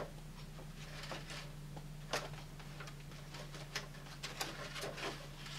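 Faint, scattered taps and rustles of paper and card stock being handled, over a steady low hum.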